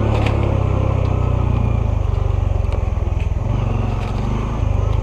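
Honda CT125's 125 cc air-cooled single-cylinder engine running steadily under load on a dirt trail. The engine note eases off about three and a half seconds in and picks back up near the end.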